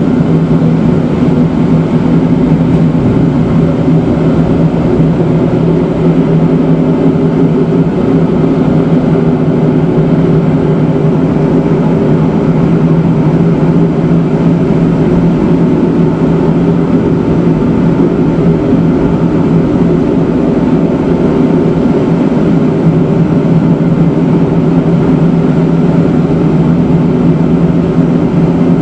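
Matterhorn Gotthard Bahn rack-railway train running on its cog-rail line, heard from on board as a loud, steady mechanical drone with a constant low hum.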